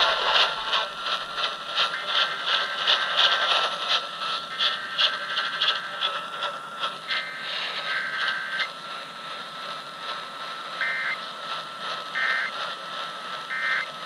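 Midland ER-210 emergency radio's speaker playing an AM broadcast through heavy static: hiss and crackle with a steady whistle, broken by several short bursts of tones, the opening of a weekly Emergency Alert System test.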